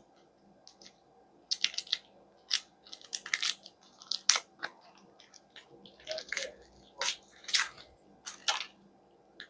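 Seasoning being handled and added to the pot: irregular short crinkling and crunching sounds, starting about a second and a half in.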